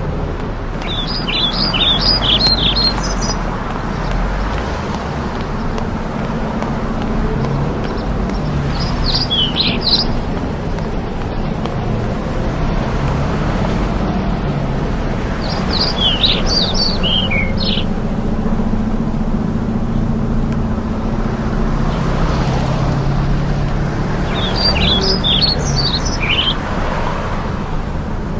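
A songbird singing a short phrase of quick falling notes, four times, about every eight seconds, over a steady low rumble.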